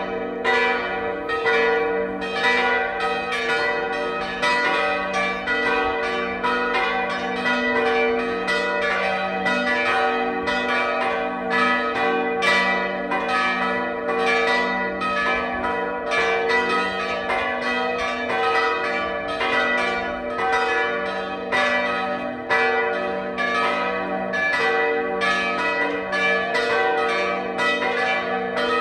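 Full peal of four swinging church bells, tuned g', B (German h'), d'' and e'', which are out of tune with one another; they are Oberascher bells cast after the war, about 1,300 kg together. The strokes come several times a second and overlap without a break over a steady hum.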